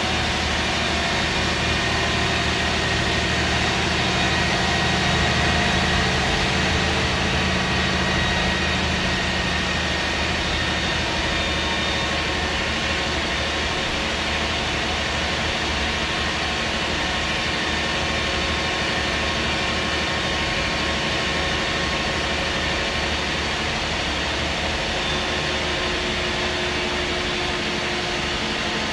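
MAN SD202 double-decker bus with its MAN D2566 MUH six-cylinder diesel engine running steadily at an even engine speed.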